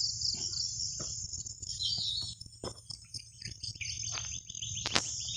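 Insects trilling steadily and high-pitched, with a bird chirping repeatedly from about two seconds in, and scattered short clicks and knocks.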